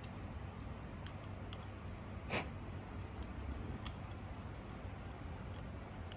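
A few light clicks and taps of small metal parts and screws being fitted into the front cover assembly of a Jack 5-thread overlock sewing machine, with one sharper click about two seconds in, over a steady low hum.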